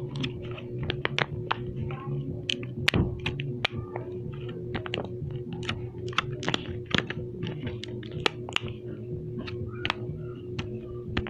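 Fidget toy being clicked and pressed by hand: irregular sharp clicks, a few a second, over a steady low hum.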